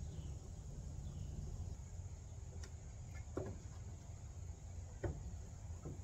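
A steady high-pitched insect drone over a low rumble, with a few faint taps about three and five seconds in.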